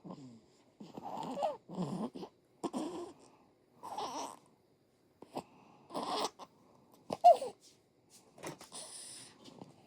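One-month-old baby snoring in deep sleep: a string of short, uneven noisy breaths about once a second, pausing for about a second around the middle. A brief high squeak that falls in pitch, about seven seconds in, is the loudest sound.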